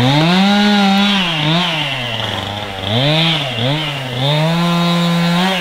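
Chainsaw engine running at high revs, its pitch dropping and climbing back several times as the throttle is eased off and opened again.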